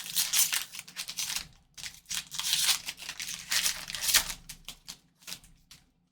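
Crinkling and tearing of a trading-card pack wrapper being opened and handled, in irregular rustling bursts that die away near the end.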